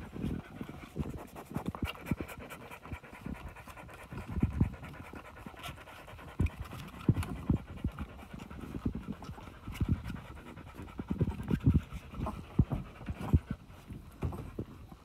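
Mother dog panting while her puppies nurse, with irregular soft low thumps and clicks throughout.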